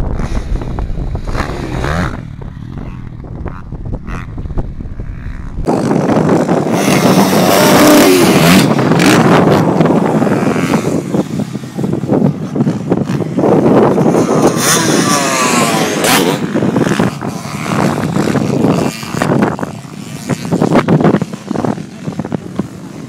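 Dirt bike engines revving up and down, their pitch rising and falling, with wind rumbling on the phone's microphone. The sound jumps suddenly louder about six seconds in.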